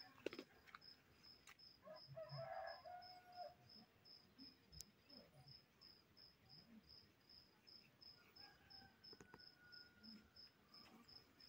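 Insect chirping faintly and steadily, about three high chirps a second, with a faint rooster crow about two seconds in.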